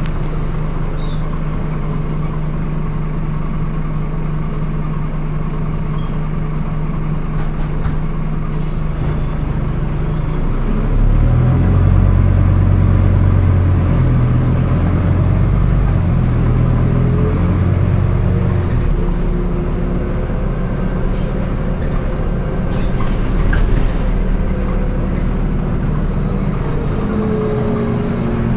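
Scania N320UB city bus diesel engine, heard from inside the bus. It runs steadily, then about eleven seconds in it pulls harder and louder, and its note changes in steps several times as the ZF automatic gearbox shifts, before it settles to a steadier run.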